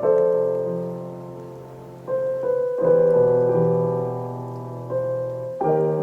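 Background piano music: slow sustained chords, a new chord struck about every one to two seconds and left to ring and fade.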